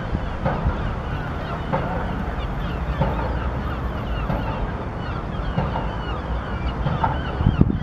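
Birds calling repeatedly, over a steady low rumble of wind on the microphone, with a louder low bump near the end.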